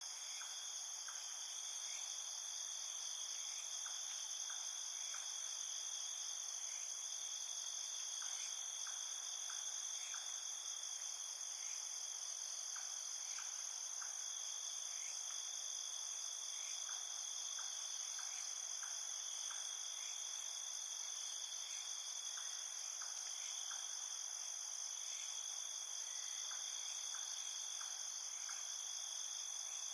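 Night chorus of crickets and other insects: a steady, high-pitched trilling that never lets up, with short chirps at a lower pitch coming in small clusters every second or two.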